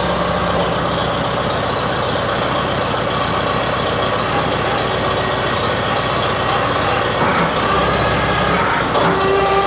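1953 Farmall Super A's four-cylinder gasoline engine idling steadily just after a cold start, with an even firing beat. Its note shifts about eight seconds in.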